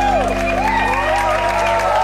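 The final sustained chord of a song rings out while an audience begins applauding and cheering.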